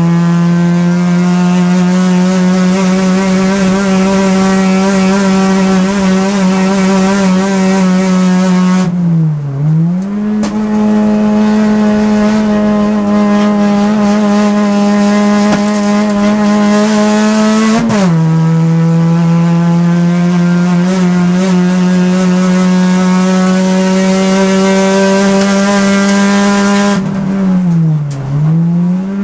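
Race car engine heard from inside the cabin, running hard at high, nearly steady revs. The pitch dips and recovers briefly about 9 seconds in and again near the end as the driver lifts, and drops suddenly about 18 seconds in.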